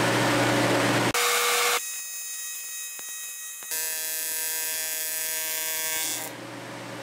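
AC TIG welding arc on 7075 aluminum, a steady electric buzz that starts about a second in, gets louder about three and a half seconds in, and stops about six seconds in.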